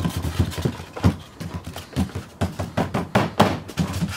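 Fingers tapping on a hand-drawn paper keyboard laid on a tabletop, as if typing: irregular soft thumps and taps, a few a second.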